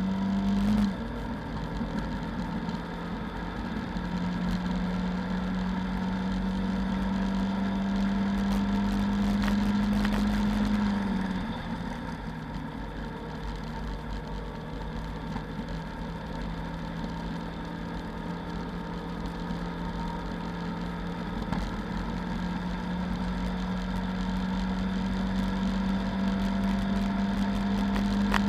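Lada 2109's four-cylinder petrol engine heard from inside the cabin, running hard at high revs under racing load. Its pitch creeps up, falls sharply about eleven seconds in, holds lower, then climbs again from about twenty-one seconds.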